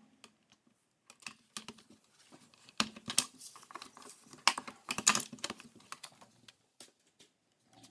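Cardstock being scored with a plastic bone folder on a grooved scoring board, then handled and slid off the board: an uneven run of short scrapes, taps and paper rustles.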